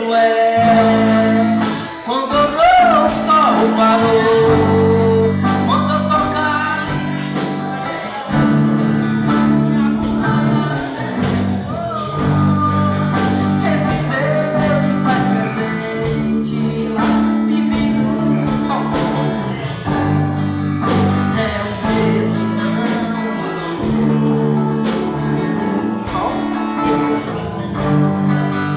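A church band playing a gospel song, with singing over sustained chords.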